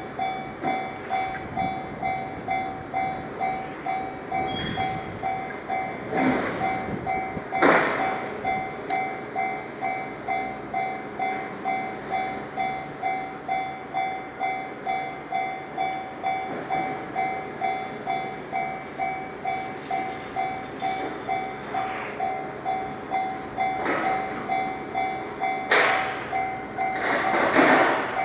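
Japanese level-crossing warning bell ringing steadily at about one and a half strokes a second, over the running noise of a Takasaki Line train passing, with a few louder clacks.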